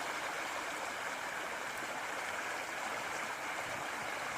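Creek water rushing steadily through a narrow open channel of small rapids between shelves of ice.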